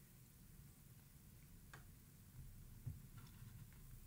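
Near silence: low room hum with two faint single clicks, one a little under two seconds in and one about three seconds in.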